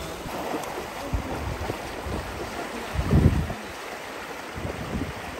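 Stream water flowing steadily, with a louder low rumble about three seconds in.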